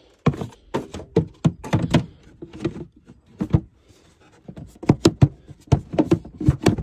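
Irregular sharp plastic knocks and clicks as the stock air box lid is seated over the air filter and clipped shut.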